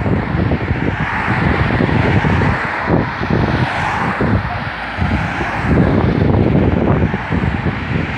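A line of cars driving past one after another, their engines and tyres on asphalt making a continuous rumble, with wind buffeting the microphone.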